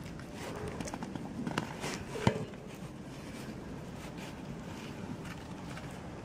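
A cat eating from a plastic food tub: soft chewing and small clicks, with one sharper knock a little over two seconds in.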